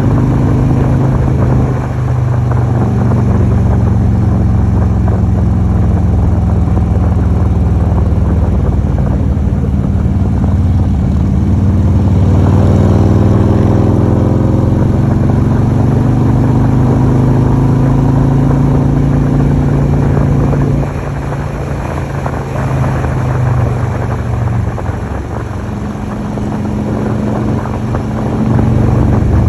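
Motorcycle engine running at road speed with wind noise, a steady low drone. It eases off about two-thirds of the way through and picks up again near the end.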